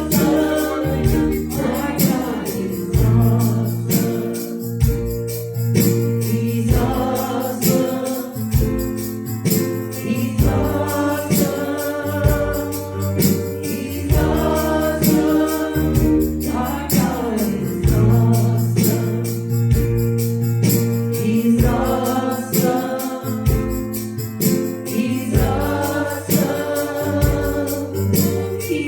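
A church worship band plays a gospel praise song with sung vocals, over a steady beat from drums or percussion and a strong bass.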